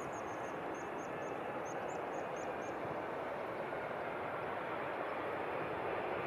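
Airliner on landing approach, its engines a steady rushing noise growing gradually louder. A series of short high chirps sounds over it in the first few seconds.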